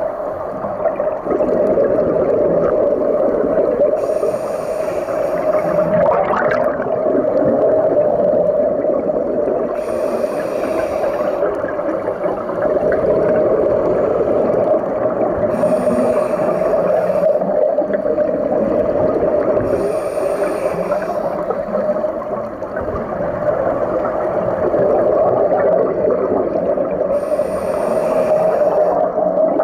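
Scuba diver breathing through a regulator underwater: five short hissing breaths, spaced about every five seconds, over a steady underwater drone and bubbling.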